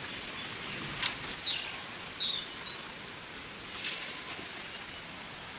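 Chicken and cluster-bean (gwarfali) curry sizzling steadily in a steel kadai, with a single light knock about a second in. A few short, high bird chirps come soon after.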